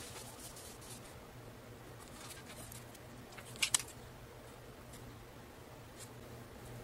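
Small clicks and scrapes of fingers handling an HTC EVO 3D smartphone, the loudest a quick cluster of clicks a little past halfway, over a faint steady hum.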